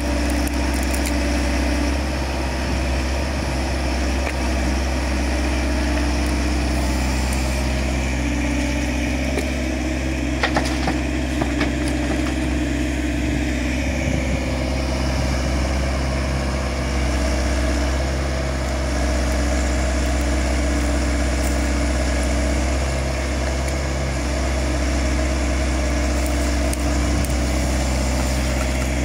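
XCMG XE60GA mini excavator's diesel engine running steadily as it digs and loads earth into a tipper truck. A few sharp knocks come about ten seconds in.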